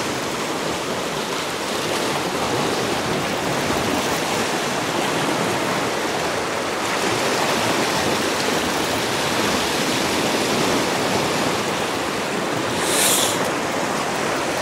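Steady rushing wash of small sea waves against shoreline rocks, with a brief, higher hiss near the end.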